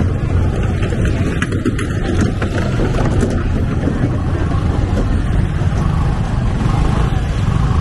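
Motorbike traffic running close by in a crowded street, a steady low rumble.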